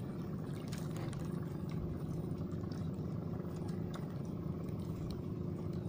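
A small boat engine running steadily at low revs, with a few faint clicks.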